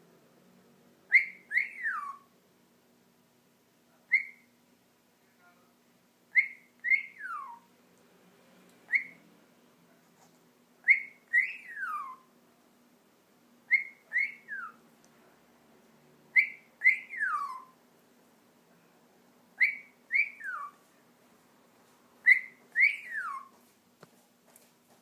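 Amazon parrot whistling the same short phrase over and over, about nine times, every two to three seconds: a quick high note followed by a note that slides down.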